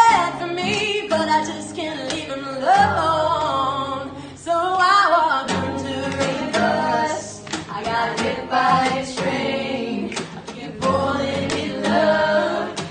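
A woman singing a song live over a strummed acoustic guitar.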